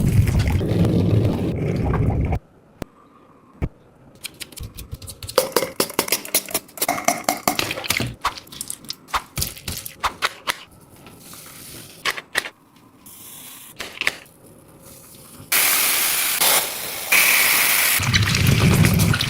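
Squishy fidget toys squeezed and handled close to the microphone: a run of sharp crackling, sticky popping clicks, then a loud steady hissing crinkle near the end.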